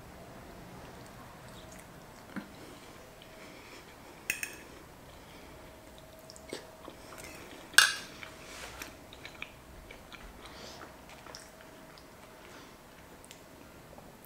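A person chewing bacon with the mouth closed. A few short sharp knocks stand out, the loudest about eight seconds in, over a faint steady hum.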